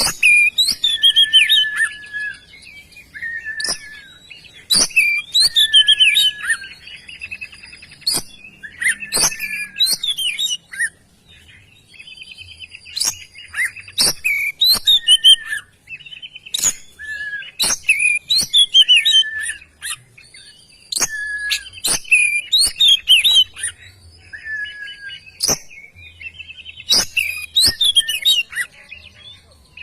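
Oriental magpie-robin singing loudly: varied whistled and warbled phrases with sliding notes, delivered in bursts every few seconds and laced with sharp clicking notes.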